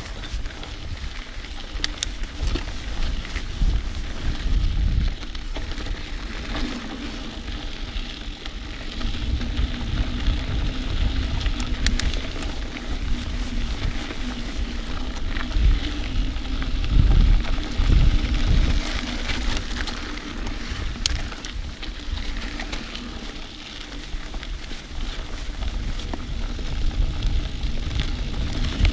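Mountain bike ridden along a dirt cross-country trail: uneven low rumble of wind and rough ground on the camera's microphone, with a few sharp knocks as the bike goes over bumps.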